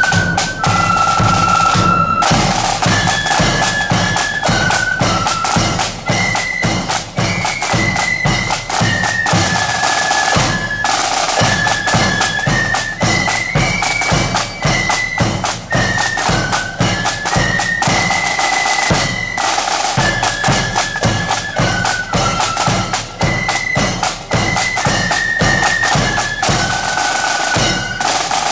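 A marching flute band plays a tune on high flutes over steady snare and bass drum beats.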